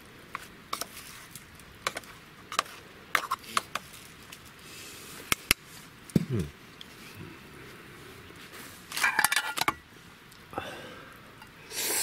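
Aluminium mess tins and chopsticks being handled: scattered light clicks and scrapes of metal, with a denser clattering burst about nine seconds in.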